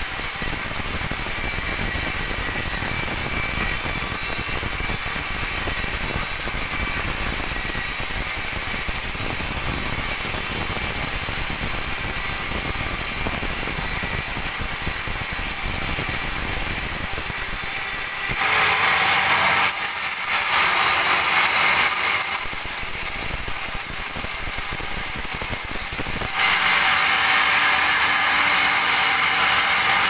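Hanta band sawmill running, its blade sawing lengthwise through a squared teak log with a steady mechanical whir and rasp. About 18 seconds in the sound turns abruptly brighter and a little louder, and again near 26 seconds.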